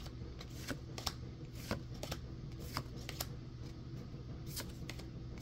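Pokémon trading cards being flipped through one at a time, each card slid off the stack and onto the front with a light flick, about a dozen irregular clicks.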